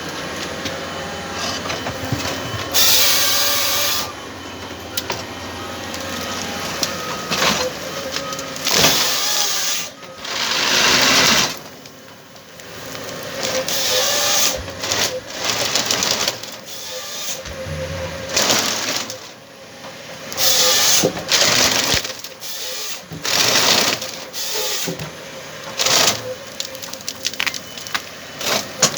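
Komatsu 931 XC harvester with a C144 head at work: a steady engine and hydraulic note under repeated loud bursts of noise, each lasting about a second or two, with quieter gaps between them.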